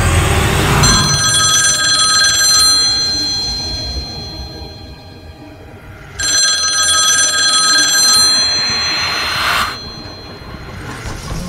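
Old telephone ringing twice, each ring lasting about two seconds with a fading tail, several seconds apart. A low rumble dies away in the first second.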